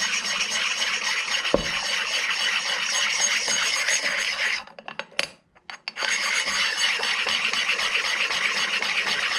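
Sharpening stone rubbed over the aluminum sealing face of a Cummins VGT turbo actuator housing, a steady rasping scrape as it takes out high spots and slight warpage so the face seals flat to the turbo. The scraping stops for about a second and a half near the middle, with a few light clicks, then carries on.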